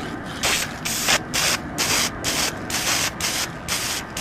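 Aerosol spray can of primer hissing in short repeated bursts, about two to three a second, as a motorcycle wheel is given a light coat.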